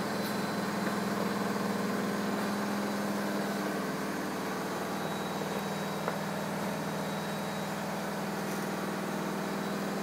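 A steady low mechanical hum with no break, and a faint knock about six seconds in as a wooden spoon stirs the potato dough in a bowl.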